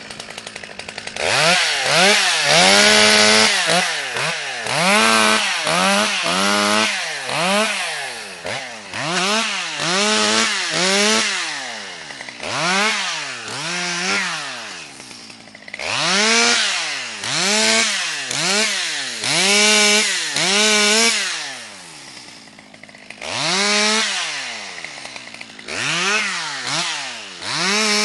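Stihl 200 two-stroke chainsaw revved up and down over and over, its pitch rising and falling about once a second, while limbing a birch.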